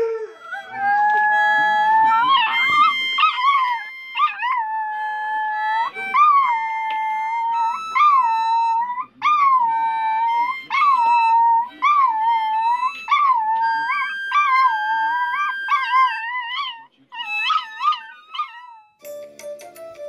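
Chinese Crested dog howling along to music, one long wavering howl that rises and falls in pitch again and again, with held instrument notes behind it. About a second before the end the howling stops and different music starts.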